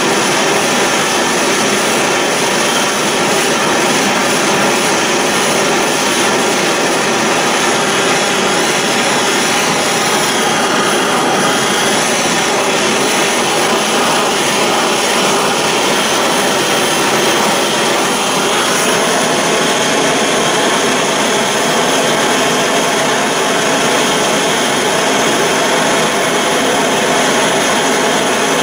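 Handheld gas blowtorch burning with a steady, even hiss, its flame heating a small steel part to heat-blue it.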